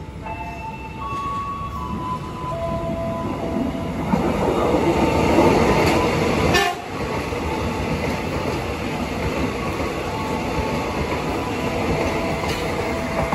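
Airport rail link electric train running past close along the platform: the rush of wheels and running gear swells, is loudest about four to seven seconds in, then carries on steadily as the cars go by.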